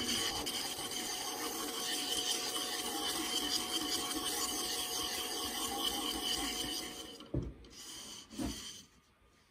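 A narrow strip of sandpaper pulled back and forth, shoeshine-style, through the carved twist of an apple burl goblet stem, making a steady scratchy rasping. The rasping stops about seven seconds in, followed by two light knocks.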